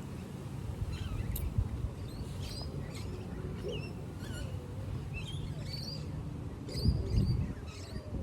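Small birds chirping, many short high calls scattered throughout, over a steady low rumble. A louder low rustling thump comes about seven seconds in.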